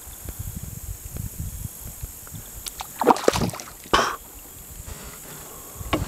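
Small largemouth bass released into a creek: a low handling rumble, then a couple of short splashes about three and four seconds in as the fish goes back into the water.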